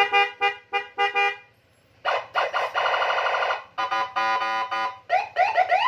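Custom Senken police-escort siren on a Honda ADV, sounding through a 15-watt horn speaker. It plays a string of short blasts, then two long, rapidly pulsing tones, then quick rising whoops near the end.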